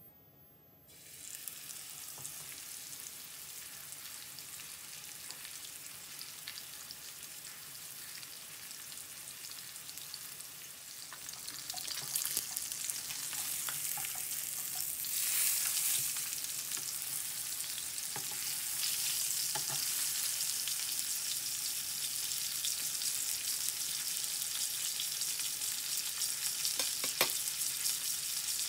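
Hot oil sizzling in a nonstick frying pan. It starts about a second in, then gets louder about halfway through as a seasoned bone-in steak goes into the pan and sears, with scattered pops of spitting fat.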